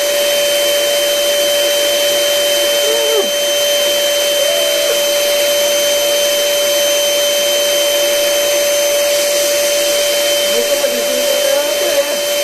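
Electric air blower running steadily with a constant whine, pumping air into a giant balloon as it inflates.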